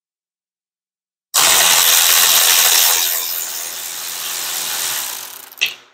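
Cordless electric ratchet running as it backs out a Torx screw holding the third brake light. It starts abruptly about a second in, eases off after a couple of seconds, and a sharp click comes just before it stops.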